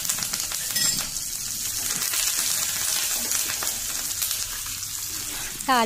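Fresh curry leaves sizzling and crackling in hot sesame oil in a small tempering pan, frying with mustard seeds and dal for a South Indian tadka. A steady hiss with many fine crackles.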